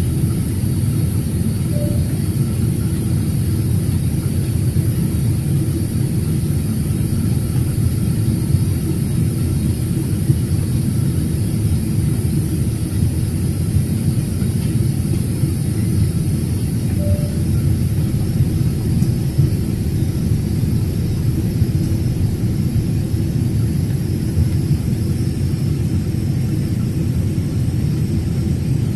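Steady rumble of an airliner's jet engines and rushing air, heard inside the passenger cabin during the climb after take-off.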